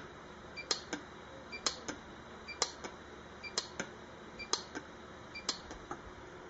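Pulse-arc micro welder firing on thin sterling silver: sharp clicks at a steady rate of about one a second, each followed by a softer click. The clicks stop about five and a half seconds in.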